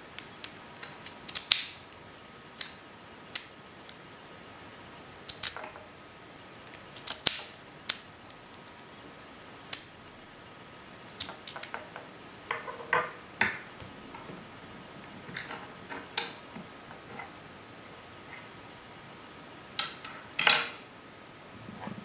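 Lock picks and a tension wrench clicking and scraping against a Fichet 484 H wafer switch lock held in a vise: scattered short metallic clicks, some in quick clusters, the loudest about a second and a half in and near the end.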